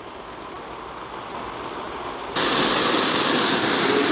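Water from a garden hose spraying steadily onto thin nylon tent fabric, a continuous hiss. About two seconds in it turns abruptly louder and fuller, heard from inside the tent under the sprayed flysheet.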